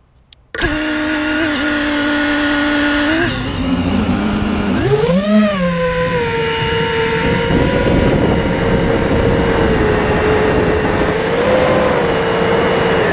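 An FPV quadcopter's motors and propellers whine, heard from the onboard camera. They start suddenly about half a second in, rise in pitch as the quad lifts off and climbs around five seconds in, then settle into a steady whine with small swells in pitch.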